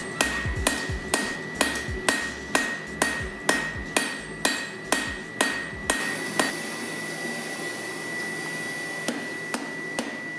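Hand hammer striking metal on an anvil while forging, about two blows a second, then stopping about six seconds in; a few lighter taps follow near the end. A steady high whine runs underneath.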